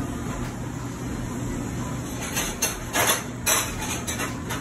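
Metal serving spoon clinking and scraping a few times as salsa is scooped and spread, the strikes coming in the second half, over a steady machine hum.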